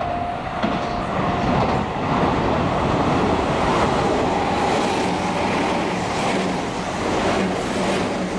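Meitetsu electric train passing through a station at speed without stopping, a loud rush of wheel and running noise close by. The clickety-clack of wheels over rail joints comes in the second half. A steady high tone fades out about a second in, and the rush eases near the end as the train clears.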